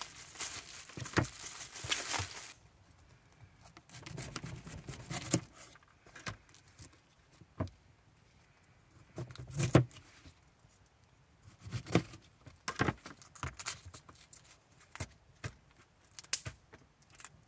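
Plastic produce bag rustling and tearing as it is cut and pulled off a head of cauliflower, then a series of crisp snaps and cracks as the cauliflower's leaves and florets are broken off by hand, the loudest about ten seconds in.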